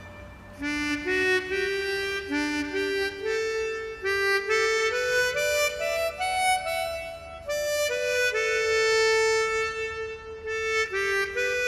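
Background music: a slow instrumental melody of held notes, climbing for the first few seconds and then falling back.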